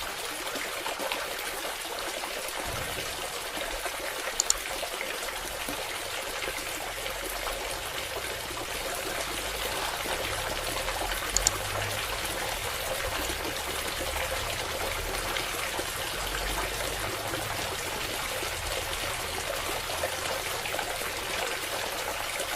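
Water trickling and pouring steadily from a small DIY submersible water pump, with two short sharp clicks, about four and a half and eleven and a half seconds in.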